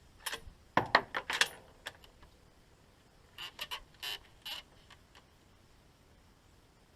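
Howa 1500 bolt-action rifle's bolt being worked between shots: a quick run of sharp metallic clicks and clacks about a second in, then a second, lighter cluster of clicks a few seconds later.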